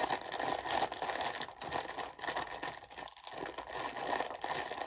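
A Funyuns snack bag crinkling and crackling as it is pulled open by hand.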